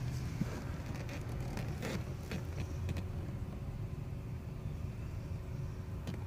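Low steady rumble heard inside a car's cabin, with a few soft clicks and rubbing sounds in the first few seconds as the phone is handled.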